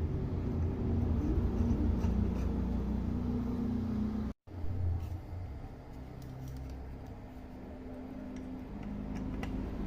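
Low steady electrical hum with a few faint clicks and taps as supply wires are handled and connected to a car amplifier's terminals. The sound cuts out for an instant about four seconds in.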